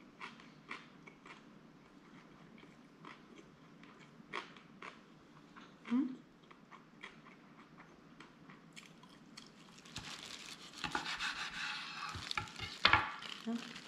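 Faint chewing with small clicks, then about ten seconds in a knife saws through a kimbap roll on a wooden cutting board, with the crackle of the dried seaweed wrap and a sharp knock as the blade meets the board just before the end.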